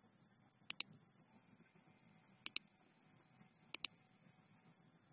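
Computer mouse clicking faintly, three quick double clicks spaced a second or more apart, over faint room hiss.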